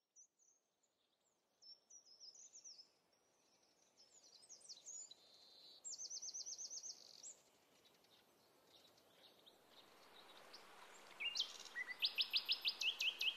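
Songbirds singing faintly in a conifer forest: scattered high chirps, then a rapid trill of evenly repeated notes about six seconds in and another trill near the end. A soft rushing of flowing water rises underneath in the last few seconds.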